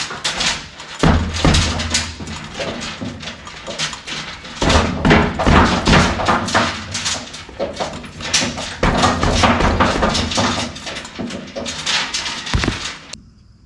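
Repeated metal clanks and thumps as a steel wrecker bed is shifted on the truck frame and its rear bolts are worked into their holes, with the holes fitting snug and not lining up easily.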